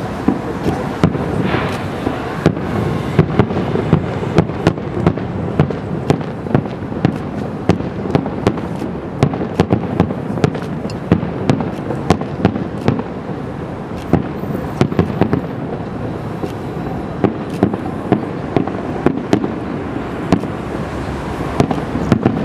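Aerial firework shells bursting in quick succession: sharp bangs, two or three a second, over a continuous dense wash of noise from the display.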